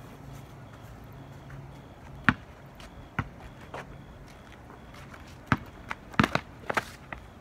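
A basketball bouncing on a concrete driveway: a few separate bounces, then a quick run of bounces about six seconds in as play resumes.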